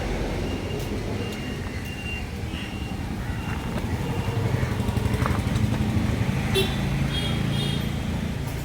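A motor vehicle's engine running close by, its low rumble growing louder through the middle and easing off near the end, with brief higher tones near the end.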